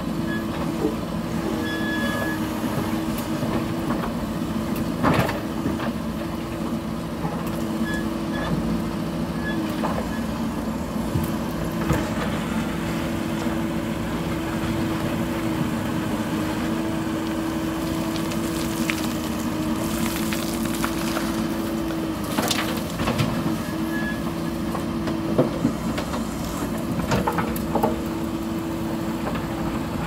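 Mahindra EarthMaster SX90 backhoe loader's diesel engine running steadily while it works. A few sharp knocks and clatters of gravel and the bucket against stone come through over it.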